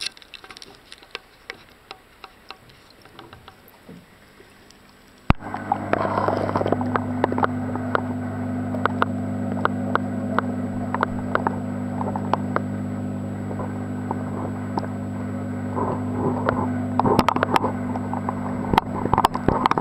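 An aquarium pump's steady low mains hum, heard through the water by a submerged camera, with frequent small clicks and crackles over it. For the first few seconds there are only faint handling clicks; about five seconds in, a sharp knock comes as the camera goes under and the hum starts.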